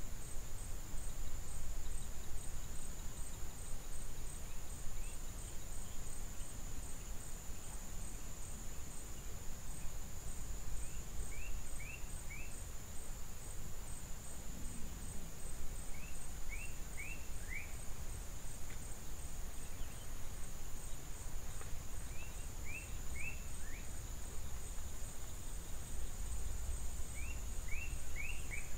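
Outdoor ambience dominated by a steady, high-pitched insect drone. Short chirps in quick groups of three or four, each note falling in pitch, come about every five or six seconds, over a low rumble.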